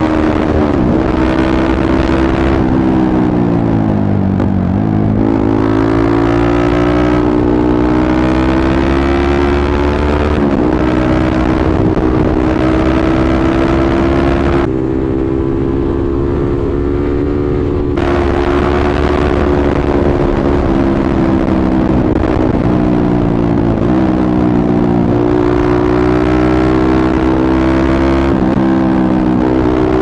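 Yamaha MT-15's single-cylinder engine through an aftermarket Akrapovic exhaust, running hard at road speed. Its revs drop sharply about four seconds in and climb again, with several shorter dips and recoveries later on.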